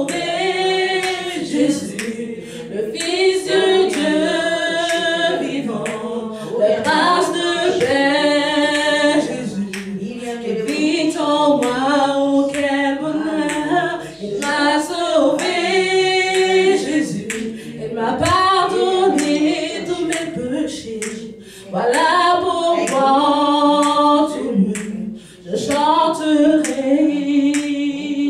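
A woman singing a gospel song unaccompanied into a microphone, holding long notes with a wavering vibrato.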